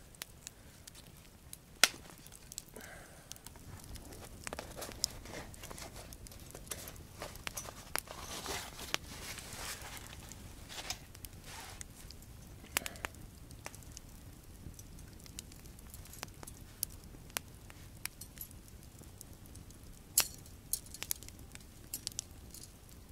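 Wood campfire crackling, with light metallic clicks and rattles from a folding metal grill grate being handled and unfolded. Scattered sharp clicks, the loudest about two seconds in and again near the end.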